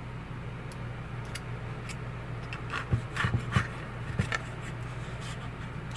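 A fork clicking and scraping a few times as it cuts through a pita sandwich, the taps bunched together a few seconds in, over a steady low hum.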